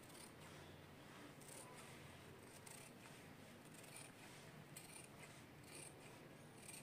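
Tailoring scissors cutting cloth: a series of faint, short snips, roughly one or two a second.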